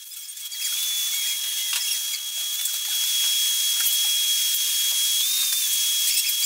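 Horizontal milling machine running a hand-ground high-speed-steel fly cutter against a brass escapement blank: a steady high-pitched whine over a hiss, with a few faint ticks.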